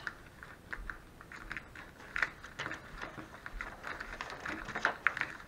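Small spoon stirring and scraping a damp, crumbly baking-soda paste in a small cup: irregular light clicks and scrapes.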